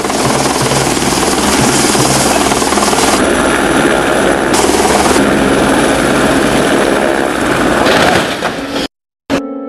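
Helicopter's rotor and turbine engine running loudly as it comes down onto a ship's deck and tips over in a crash. The sound cuts off suddenly near the end.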